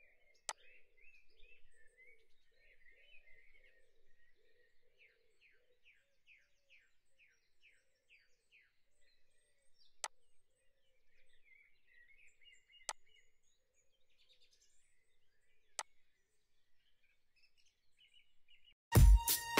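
Four sharp computer mouse clicks, one about half a second in and three more in the second half, over faint background birdsong with a short rapid trill in the middle. Electronic music starts just before the end.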